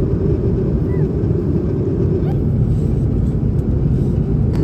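Steady drone of a jet airliner's cabin, engine and air-system noise with a low hum that holds even throughout.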